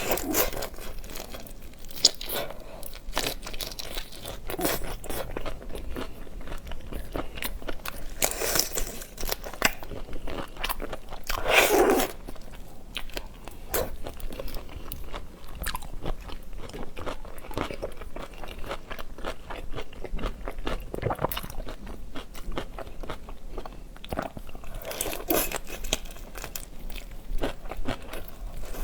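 Close-up eating sounds of seafood: steady crunching, biting and chewing, with several louder crunches along the way.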